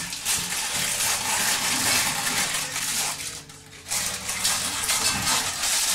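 Baking parchment crinkling and rustling as it is trimmed with scissors, with a brief pause about three and a half seconds in.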